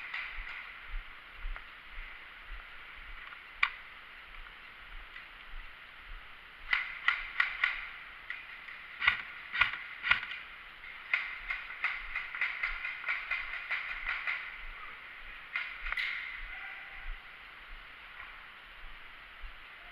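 Airsoft guns firing: a single shot a few seconds in, then short clusters of shots and a longer run of rapid shots in the middle, with a few more near the end.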